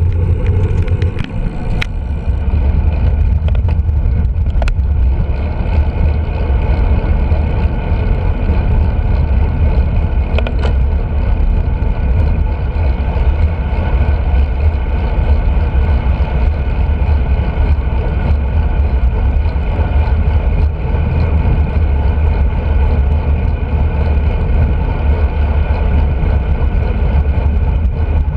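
Wind buffeting a handlebar-mounted camera's microphone on a road bike rolling along a lane: a loud, steady rumble with a hiss of road noise over it. A few sharp clicks sound in the first few seconds.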